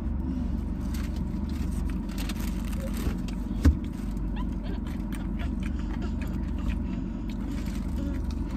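Steady low hum inside a car's cabin, with faint crunches of someone eating and one sharp thump about three and a half seconds in.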